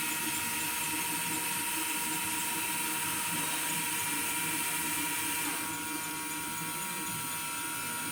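Electric motors of a LEGO Technic Liebherr crane running steadily with a high whine as the winches pay out the threads. A little before two-thirds through, one tone glides down and the sound steps slightly quieter, as if one winch stops.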